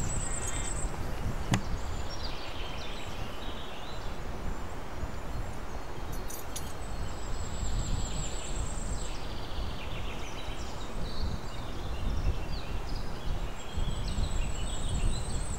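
Small forest birds singing: a high, thin trill that comes back three times, a few seconds apart, and scattered short chirps, over a steady low rumble.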